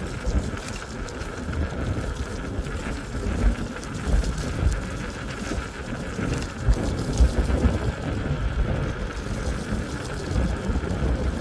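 Wind buffeting the microphone in uneven gusts over a steady rumble of travel noise, as heard while riding.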